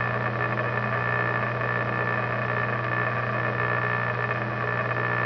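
Metal lathe running steadily, its four-jaw chuck spinning a choke-tube reamer, with an even motor hum and a steady higher whine.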